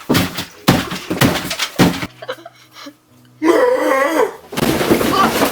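A run of loud bangs and crashes, then a person yelling for about a second, then a burst of clattering noise.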